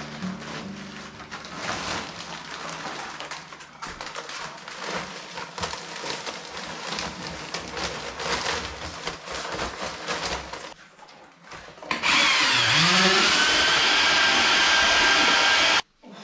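Powdered tile adhesive rustling and pouring from a paper sack into a plastic bucket, with the sack crinkling. About twelve seconds in, an electric paddle mixer spins up with a rising whine and runs loudly, stirring the adhesive, then stops abruptly.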